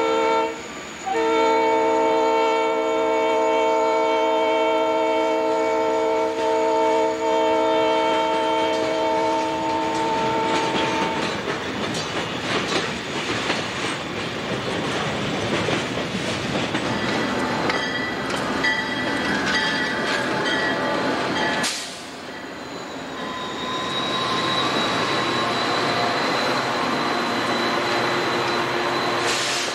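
Conrail diesel locomotives pass sounding a multi-chime horn in a long blast, with a short break about a second in, until about a third of the way through; then freight cars rumble and clatter past over the rail joints. After a cut, an arriving Amtrak passenger train rolls along the station platform with a steady high whine.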